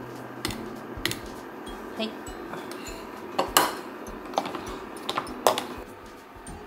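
Kitchenware clinking: a small glass container and utensils knocking against a stainless steel saucepan, and a fork against a ceramic bowl. A string of sharp clinks and taps, the loudest about three and a half seconds in.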